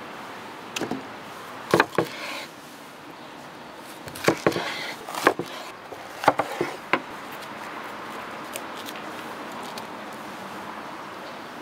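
Kitchen knife cutting bell peppers on a wooden chopping board: clusters of crisp cuts and knocks of the blade on the board through the first seven seconds, then only a few faint ticks over a steady background hiss.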